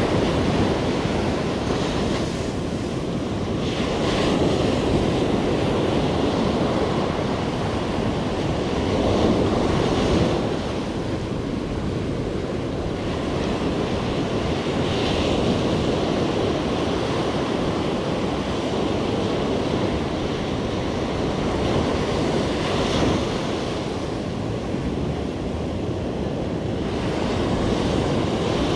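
Ocean surf breaking and washing up the beach, swelling and easing every few seconds, with wind rumbling on the microphone.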